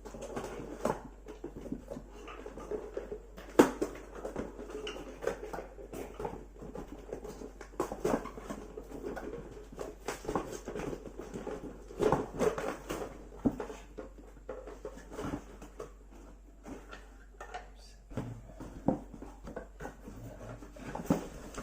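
Parts of an MD4030 metal detector handled and fitted together during assembly: irregular clicks, knocks and rustling, with one sharper knock about three and a half seconds in.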